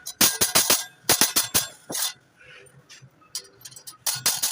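Sharp metallic clinks and taps in quick clusters, with short pauses between them: hand tools and metal parts knocking together during clutch plate repair work.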